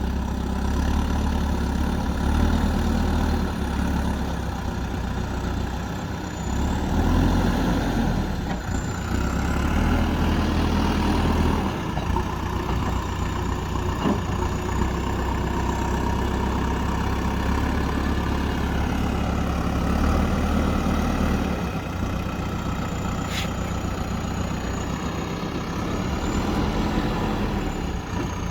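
JCB backhoe loader's diesel engine running under load as the machine pushes against a tree root, its note swelling and easing every few seconds, with a single sharp click about three quarters of the way through.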